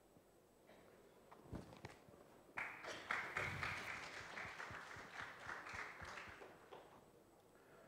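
Microphone handling noise: a soft thump, then a few seconds of rustling with light taps.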